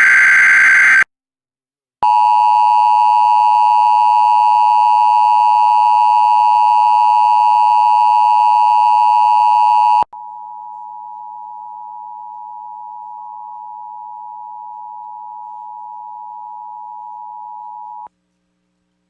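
Emergency Alert System activation for a flash flood warning. It opens with the last burst of the screeching digital SAME header. About two seconds in, the two-tone EAS attention signal sounds steadily for about eight seconds, followed by a quieter single steady tone for about eight more seconds that cuts off suddenly.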